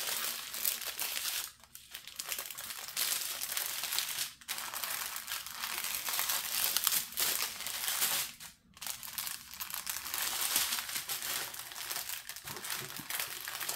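Clear plastic film over a diamond painting canvas crinkling and rustling as hands press and smooth drill strips down on it, with brief pauses three times.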